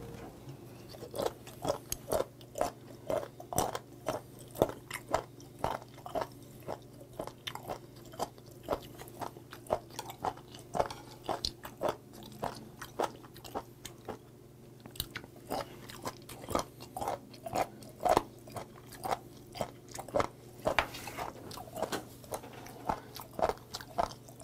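Close-up chewing of crisp raw candlestick whelk (sashimi): a steady run of crunchy chews, about two or three a second, with a short lull near the middle.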